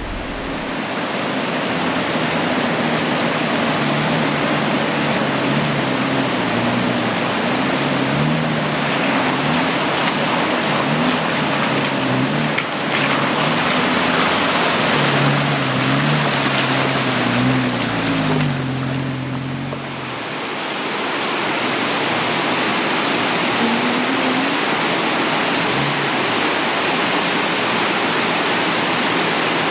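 Rushing mountain creek water, a loud steady noise. Underneath, a low droning sound steps up and down in pitch and stops about twenty seconds in.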